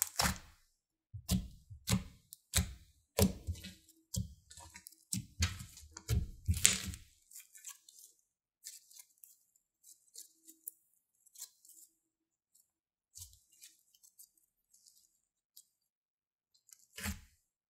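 Thick, bubbly glossy slime squeezed and kneaded by hand: wet squelches and pops about twice a second for the first seven seconds, then fainter crackling, and one more squelch near the end.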